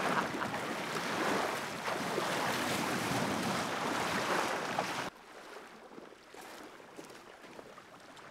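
Water splashing and sloshing as two people in waders wade out through shallow lake water, over wind and small waves. About five seconds in it cuts off suddenly to a much quieter lakeshore with faint lapping water and light wind.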